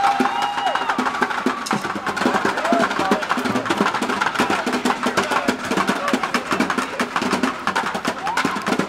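Street percussion: fast, steady drumming with many sharp hits, over the chatter and voices of a crowd.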